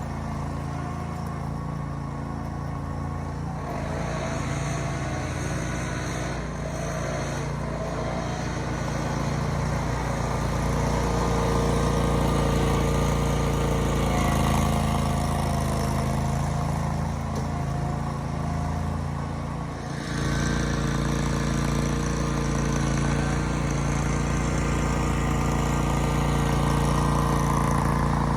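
Small engine of a lawn-care machine running steadily, its note shifting about four seconds in and again around twenty seconds.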